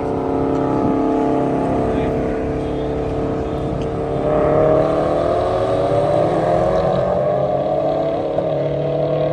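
Vehicle engine running with a steady drone that starts climbing slowly in pitch about four seconds in, as when gathering speed.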